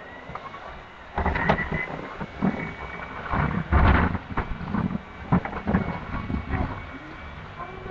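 Irregular knocks, thumps and rustling from people moving about a room and handling things, over a faint steady high whine.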